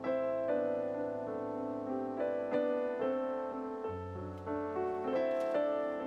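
Background piano music: a slow run of sustained notes and chords.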